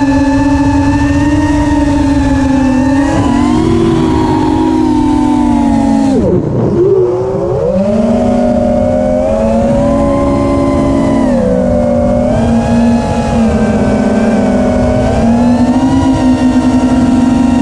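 FPV quadcopter's DYS Samguk 2207 2600kv brushless motors and propellers whining, the pitch shifting up and down with throttle. About six seconds in the pitch drops sharply and climbs back, a throttle chop and punch.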